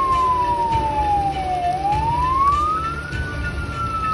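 Emergency vehicle siren wailing: one clear tone slides slowly down, rises again near the end, then starts to fall once more, over the hiss of heavy rain.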